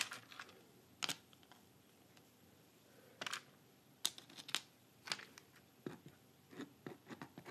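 Faint, irregular clicks and taps of small art-glass mosaic pieces being handled and set down on the backing board.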